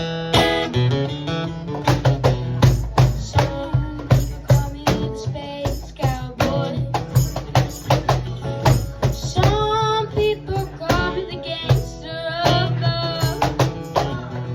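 Music: guitar over a steady bass line and a regular beat, with a melodic line gliding in pitch in the second half.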